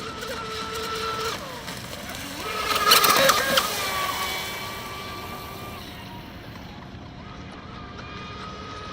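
HK Pursuit RC speed boat's stock brushless electric motor whining at high throttle, with a hiss of spray. It is loudest about three seconds in as the boat passes close, then the pitch falls away and the whine builds again near the end.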